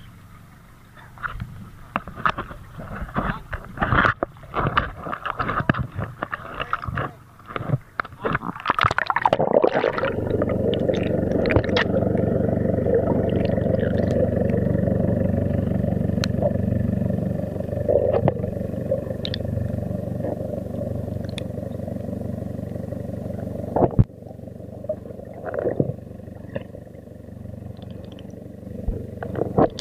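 Irregular splashing and knocking at the sea surface, then from about ten seconds in a steady, muffled underwater rumble with a low hum, heard with the camera under the sea.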